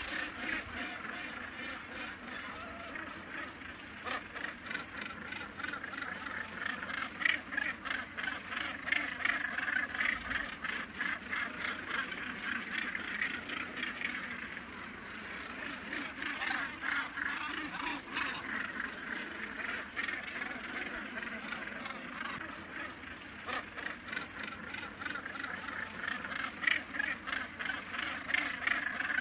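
Gannet breeding colony: a dense chorus of many birds calling at once, a constant din of short, repeated calls that swells and eases but never stops.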